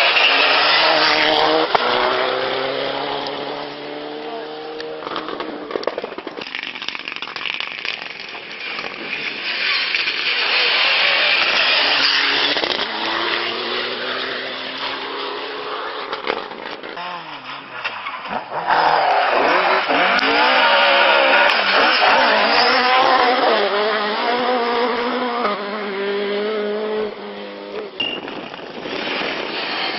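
Mitsubishi Lancer Evolution rally cars' engines at full throttle. One car accelerates away through its gears at the start. A quieter engine note rises and falls in the middle. From about 18 seconds in, the next car approaches, revving harder and louder with breaks at each gear change.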